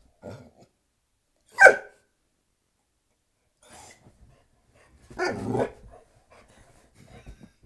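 Dog barking and growling in short outbursts: a sharp, loud bark a little under two seconds in, and a longer growling bark a little past the middle, with fainter grumbles between.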